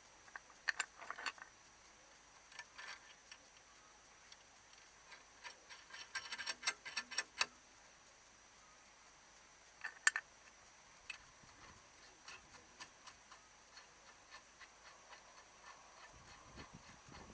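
Scattered faint clicks and light metal knocks from hands-on work at a car's front wheel hub, in a few quick clusters and then a run of small ticks about twice a second.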